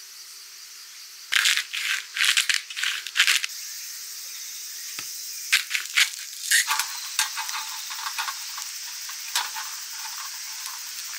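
Hand grinder twisted in short crunchy bursts, seasoning meat with pepper and salt: one spell of grinding about a second in lasting about two seconds, another around the middle, then a few scattered ticks.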